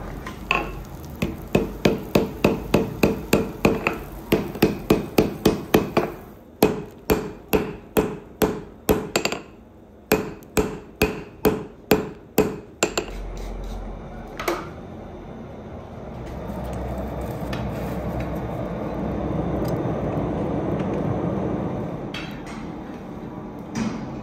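Hand hammer striking red-hot steel wire rope on a steel anvil: a fast run of ringing blows, about two to three a second, with two short breaks, forging the cable into a knife blank. The blows stop after about thirteen seconds, and a steady rushing noise follows, with one more single strike near the end.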